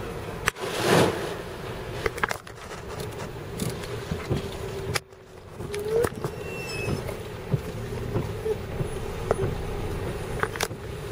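Inside a truck cab with the engine running and the windscreen wipers sweeping, with scattered clicks and taps. About a second in, a loud rush of sea spray from a breaking wave washes over the truck.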